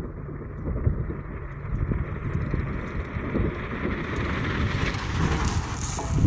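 Pickup truck approaching over gravel and sand, its engine and tyre noise growing steadily louder until it passes right over at the end.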